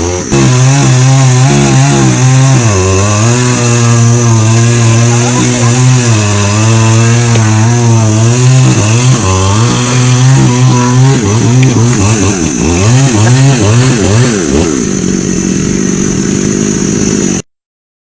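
Two-stroke chainsaw cutting into the base of a standing tree trunk at high revs, its engine pitch wavering under the load of the cut. Later the pitch swings up and down as the saw is revved, then runs lower and steadier before the sound cuts off suddenly near the end.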